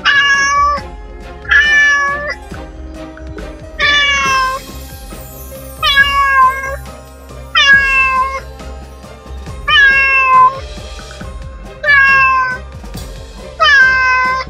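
House cat meowing, eight meows about two seconds apart, each a short call that dips slightly in pitch, over quiet background music.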